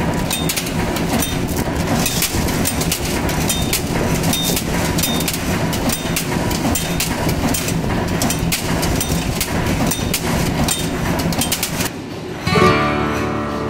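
Cold-forging bolt former machine running, with a dense, rapid clatter of metal knocks over a steady hum as the formed socket head cap screws drop out. About twelve seconds in it cuts off and strummed guitar music starts.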